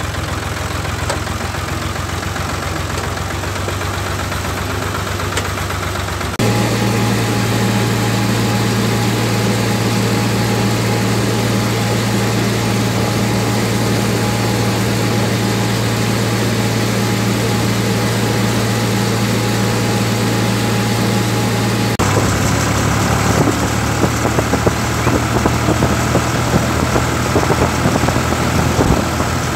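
Ford 3000 tractor's three-cylinder engine running steadily, heard close from the driver's seat. The sound changes abruptly twice: about six seconds in it becomes louder with a strong steady hum, and at about twenty-two seconds it turns rougher with irregular clattering.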